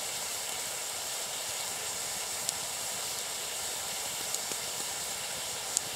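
Water in a birch bark bowl at a rolling boil around a fire-heated stone, a steady hiss of bubbling with a few faint ticks.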